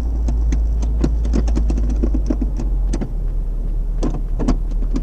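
Daewoo car engine idling with a steady low rumble that settles a little lower about three seconds in. Over it come repeated light clicks and knocks from the newly fitted aftermarket shift knob and lever being handled while its button will not push in.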